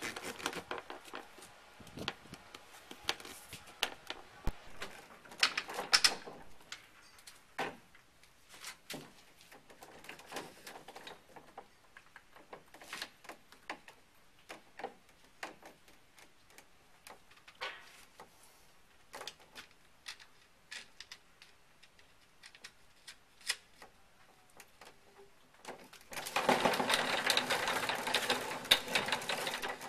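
Scattered plastic clicks and knocks as PVC pipe fittings are handled and pushed together, then near the end a few seconds of loud, dense rattling as the homemade steering wheel is turned on its PVC pipe shaft in the PVC hub.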